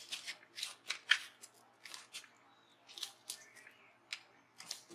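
Quiet paper handling while working with planner sticker sheets: a scattering of short, crisp ticks and rustles with pauses between them.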